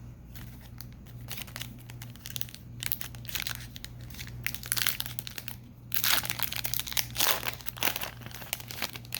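Foil wrapper of a trading-card hobby pack being crinkled and torn open: irregular crackling in clusters, growing louder in the second half.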